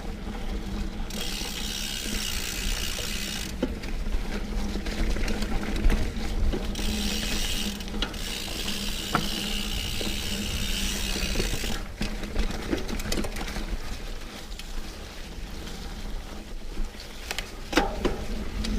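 Diamondback Mason Trail mountain bike on 27.5 x 3.5 plus tyres ridden along dirt singletrack: the tyres rumble over the ground while the freehub ratchet clicks and the drivetrain rattles. A rushing hiss comes and goes with the riding speed.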